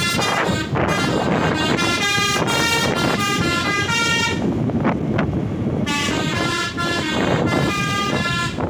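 Basuri 'telolet' multi-tone bus horn playing a quick tooting melody of changing notes, with a pause of about a second and a half midway, over a steady low rumble.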